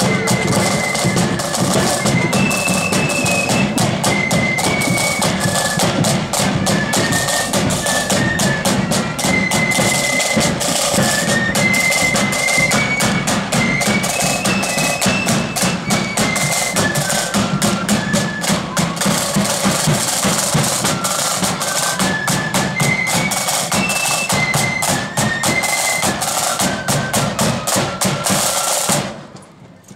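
Loyalist marching flute band playing a march: a high flute melody over rapid snare drum rolls and a bass drum beat. The tune ends about a second before the close.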